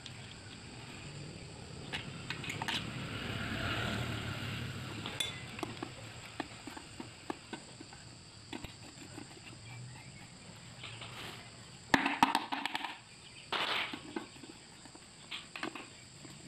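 Hand tools and small metal parts clicking and clinking against a Honda Activa scooter's aluminium engine crankcase as parts are fitted. Scattered light ticks run throughout, with a short burst of louder clattering about twelve seconds in and another just after.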